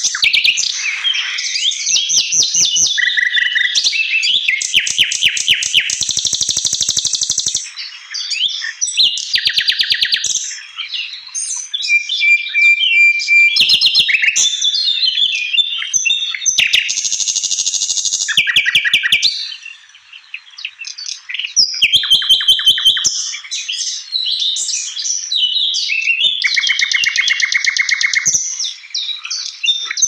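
Songbird singing continuously: fast rattling trills of rapidly repeated notes alternating with varied high whistled phrases and chirps, with a short lull about twenty seconds in.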